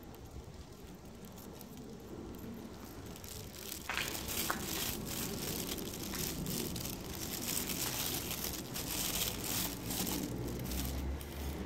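Plastic crinkling and rustling, starting about four seconds in and going on as a dense run of small crackles.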